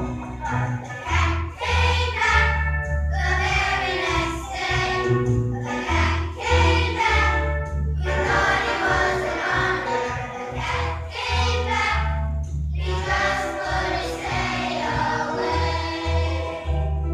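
Choir singing in parts over instrumental accompaniment, with a low bass line moving in short steady notes under the voices.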